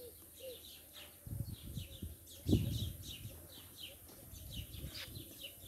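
Small birds chirping over and over, short downward-sweeping chirps, with a dove cooing faintly. A dull thump about two and a half seconds in, among low rustling.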